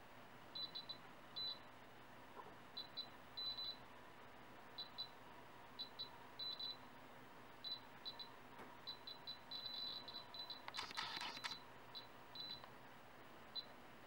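CT007-F handheld radiation detector giving short, high beeps at irregular intervals, singly or in quick pairs, roughly one or two a second. Each beep is a detected count, at a rate about ten times background, from radon decay products caught in clothes-dryer lint. A brief burst of noise comes about eleven seconds in.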